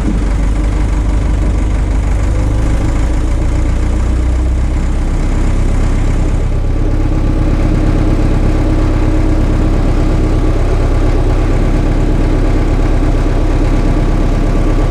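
Heavy-equipment engine running steadily at an even speed, its note shifting slightly about six and a half seconds in.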